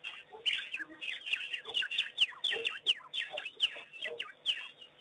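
African wild dogs twittering: a rapid, overlapping run of high-pitched chirping calls, each a short falling chirp, several a second.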